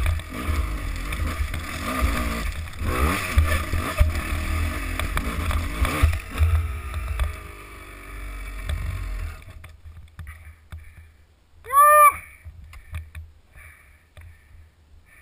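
Enduro dirt bike engine climbing a rocky trail, its revs rising and falling under load; about nine seconds in the engine sound drops away, leaving a few clicks and scrapes. A couple of seconds later a short, loud cry rises and falls in pitch.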